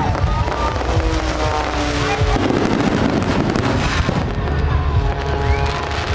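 Aerial fireworks bursting in a dense, continuous barrage of booms, with music playing over it in long held notes.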